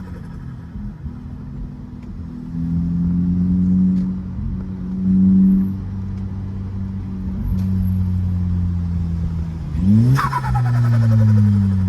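Turbocharged VW Golf engine running at steady revs. About ten seconds in it revs up sharply, then the throttle is lifted: a high turbo whistle falls away with the loud turbo flutter while the revs drop.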